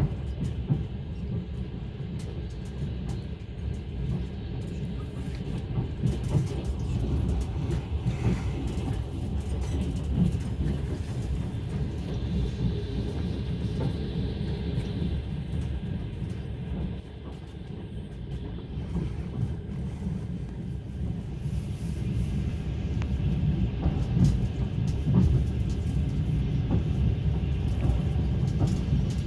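Passenger train in motion, heard from aboard: a steady low rumble of the carriage running over the rails.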